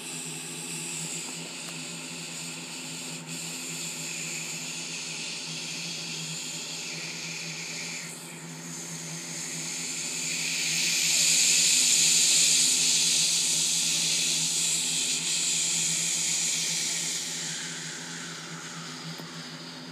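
A man imitating a Boeing 747's jet engines taxiing, using his mouth: a steady breathy hiss and whine blown through pursed lips. It swells about halfway through and fades toward the end.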